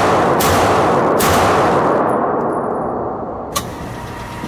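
Two shots from a 9mm STI Hawk 5.0 2011 pistol, about three-quarters of a second apart, echoing in an indoor range lane and dying away. A click a little over three seconds in, then the steady hum of the lane's motorized target carrier bringing the target back.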